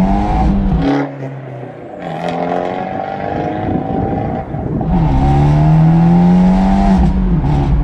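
Abarth 124 Spider's turbocharged 1.4-litre four-cylinder accelerating hard through its sport cat and cross-pipe exhaust, with turbo whistle. The revs climb, drop back at gear changes about a second in and again around four and a half seconds, then climb once more.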